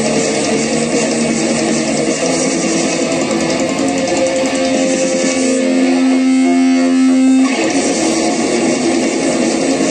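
Music led by guitar, dense and continuous, with a single low note held for about two seconds past the middle before the full texture returns.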